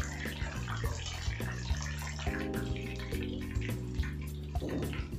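Batter-coated salmon pieces sizzling and crackling in hot oil in a frying pan, under background music with steady chords.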